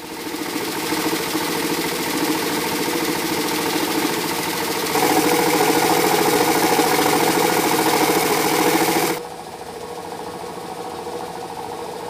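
A small engine or motor running with a dense buzz, growing louder about five seconds in and dropping back sharply a little after nine seconds.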